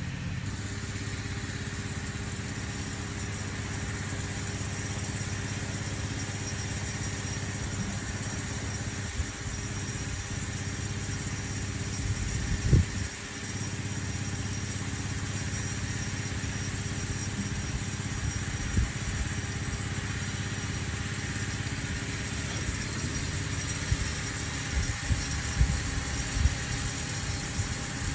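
Small engine-driven irrigation pump running steadily, feeding a rain-gun sprinkler, with a steady hiss of spraying water. A single thump about halfway through.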